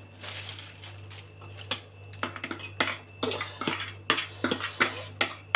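A spoon tapping and scraping inside a plastic tub as a wet spinach-and-egg mixture is scraped out onto baking paper. It makes a run of irregular sharp clicks, closer together in the second half, over a steady low hum.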